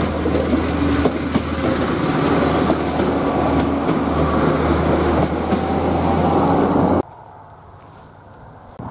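Two-car diesel railmotor set (railmotors 2032 and 2004) passing close by, its underfloor engines humming and its wheels running loudly on the rails with occasional clicks. The sound cuts off suddenly about seven seconds in, leaving only faint background.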